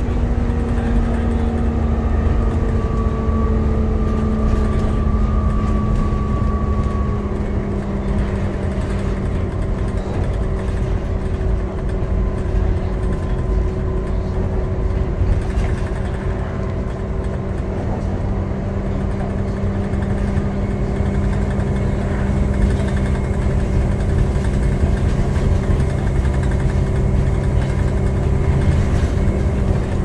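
Volvo B7TL double-decker bus heard from inside the saloon while under way: a steady engine drone carrying the whine the title calls 'Hoover'. The pitched tones ease down slightly over the first few seconds, then hold level over a low road rumble.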